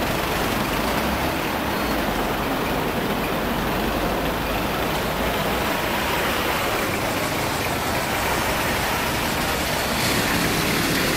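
Steady road traffic noise, the engines and tyres of passing cars blending into an even hum.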